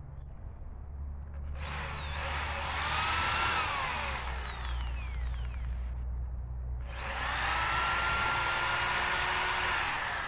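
Power drill driving screws into wood in two runs, each spinning up to a high whine, holding, then winding down as the trigger is let off.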